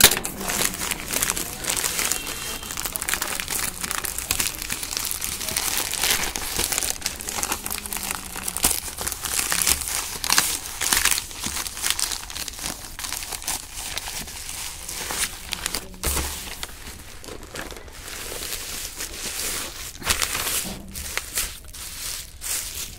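Plastic courier mailer bag crinkling and rustling with irregular crackles as it is handled and torn open by hand.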